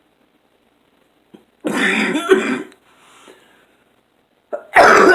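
A person with COPD coughing and clearing the throat in two bouts, one about a second and a half in and another near the end.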